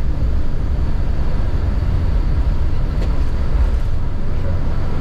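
Boeing 727-200's Pratt & Whitney JT8D jet engines running: a loud, steady low rumble of engine and airframe noise aboard the aircraft.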